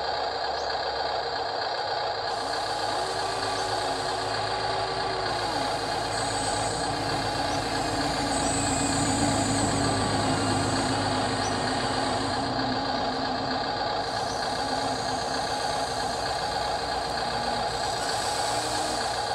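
Huina 1593 RC excavator at work: its sound module plays a steady simulated diesel engine, and its electric motors whine up, hold and die away several times as the arm and bucket swing.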